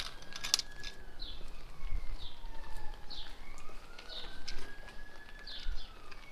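A small bird calling over and over with short chirps that fall in pitch, about one a second. Behind it a faint tone slowly rises and falls.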